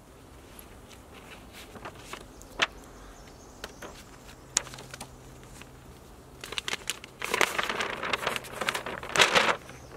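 A folded paper map being opened out: paper crinkling and rustling, a few scattered crackles at first, then a louder spell of rustling from about seven seconds in until shortly before the end.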